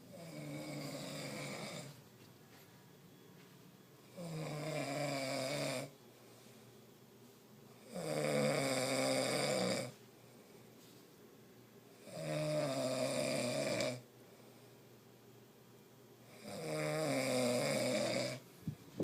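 A man snoring in his sleep: five long snores, each about two seconds, coming regularly about every four seconds.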